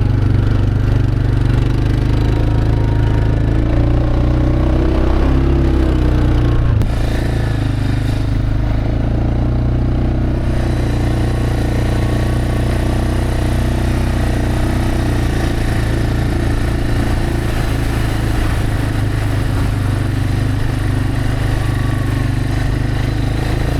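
Four-wheeler (ATV) engine running steadily under way, with a short change in engine note a few seconds in and a drop to a lower, steady pitch about seven seconds in as the throttle eases.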